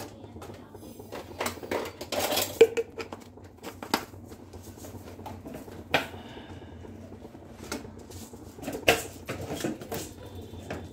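Kitchen utensils and dishes clattering: scattered clinks and knocks of spoons and containers, with a busier stretch about two seconds in and another cluster near the end.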